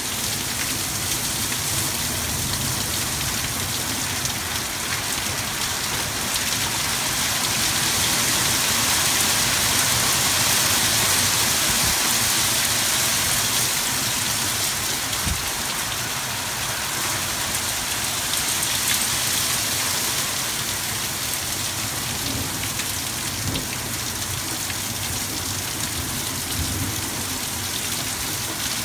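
Heavy rain pouring down onto a driveway, garden and the roof edge: a dense, steady hiss that grows a little heavier about a quarter of the way in and eases off again.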